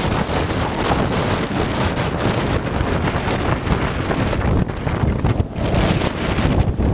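Storm-force gale from Hurricane Sandy buffeting the microphone in gusts, a loud rumbling roar of wind noise.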